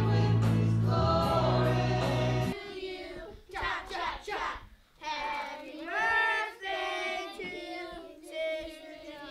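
Church worship music, voices singing over keyboard and a deep bass, stops abruptly about two and a half seconds in. After that, voices sing on without the instruments, thinner and broken by short gaps.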